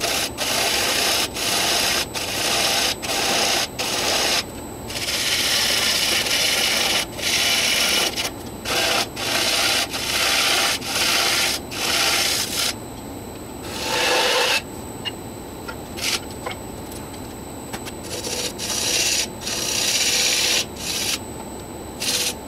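Wood lathe running under a steady hum while a hand-held turning tool is touched again and again to the face of a spinning Afghan pine box blank. Each contact gives a scraping hiss as the tool cuts decorative rings into the end grain. Some contacts are quick and some longer, with a quieter stretch of the lathe alone about two-thirds through.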